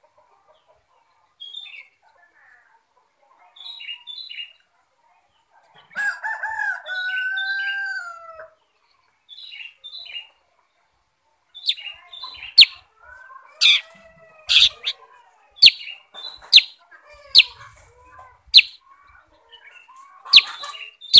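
Black-headed bulbul calling: scattered short chirps, then from about halfway a run of loud, sharp chirps about one a second. About six seconds in there is a louder call about two seconds long that falls slightly in pitch.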